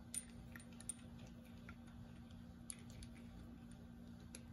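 Faint light clicks and taps, several spread irregularly, from small metal parts being handled: a hose-clamped polyurethane shock bushing with its bolt and washers, fitted by hand against the shock eye. A low steady hum runs underneath.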